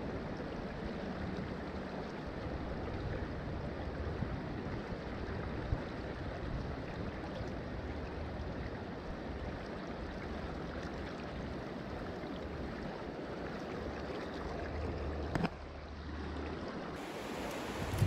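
Steady rushing of a fast-flowing creek's current, with a short dip in level near the end.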